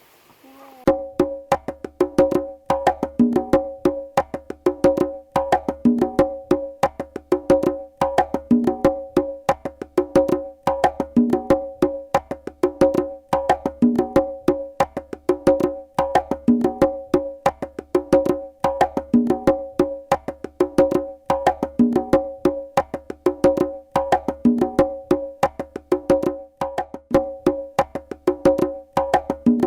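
Percussion music of rapid wooden knocks over low pitched drum tones, in a steady, looping rhythm that starts abruptly about a second in.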